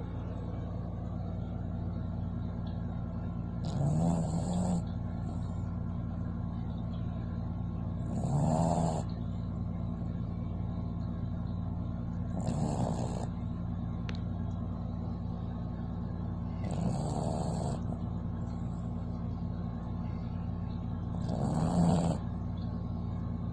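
Sleeping dog snoring: five snores about every four and a half seconds, each lasting about a second, the last the loudest. A steady low hum runs underneath.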